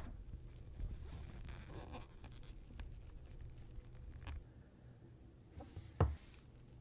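Faint scratching and light clicking of small watchmaker's tools handling parts of a pocket watch movement, with one sharper tap about six seconds in.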